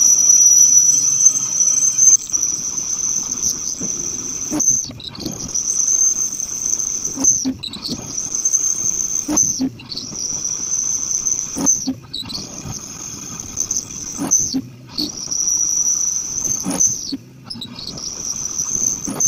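Aluminum spinning on a lathe being bored with a homemade cutting tool. The tool squeals at a high pitch as it cuts, in stretches of about two seconds broken by short pauses, about seven times over the lathe's running noise.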